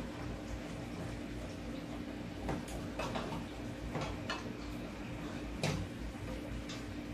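A few light clicks and knocks of cookware and utensils being handled at the stove, about six of them spread out, over a steady low hum.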